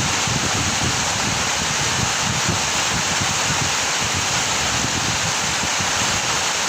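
Heavy rain falling steadily, a dense even hiss, with a low uneven rumble underneath.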